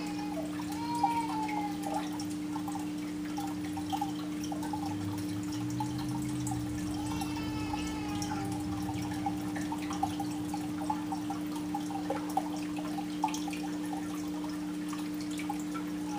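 Aquarium water trickling and dripping in small irregular ticks, over a steady low electric hum from the tank's equipment.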